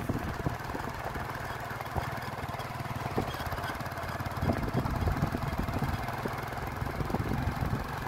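An engine running at a steady low idle, with a light rapid clatter over the even hum.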